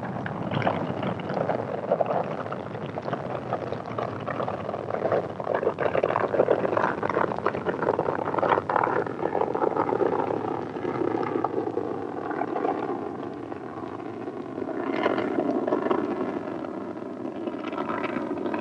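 Saturn IB rocket's clustered first-stage engines at liftoff: a rough, crackling rumble that swells and eases as the rocket climbs.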